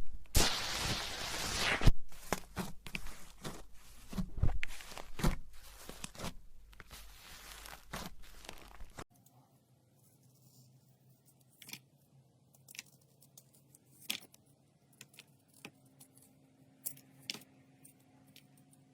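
Slime being stretched and squeezed by hand, with dense crackling and tearing for about nine seconds. Then it cuts abruptly to a quiet stretch of scattered soft clicks and pops.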